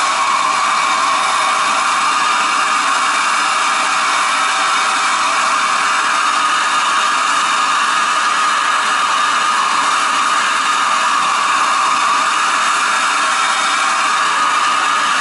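Soldering torch flame burning with a steady hiss, heating a copper water-pipe joint for soldering.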